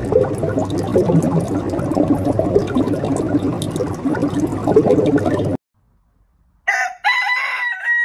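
A busy bubbling water sound lasting about five seconds, then a short silence, then a rooster starting to crow near the end.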